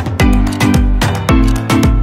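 Background music with a quick, steady beat over a deep bass line.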